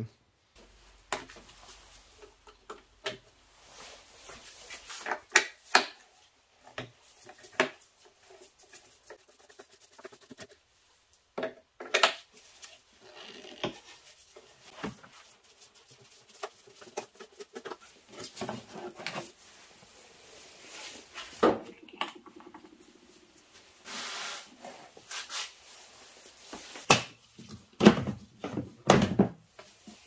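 Irregular clicks, taps and knocks of a screwdriver and plastic trim as the caps and the plastic engine cover are undone and lifted off the engine, with a few louder knocks near the end.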